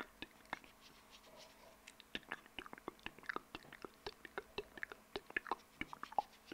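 Close-miked ASMR mouth sounds: wet clicks and smacks of lips and tongue, a few at first and then quick and irregular from about two seconds in.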